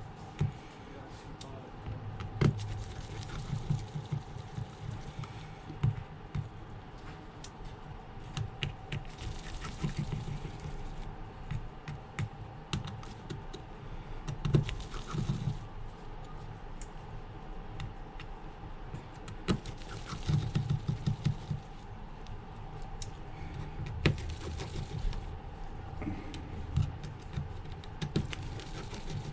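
Irregular light clicks, taps and scraping of a small Phillips precision screwdriver working out the tiny screws of a phone's internal cover, with occasional light knocks as parts are handled.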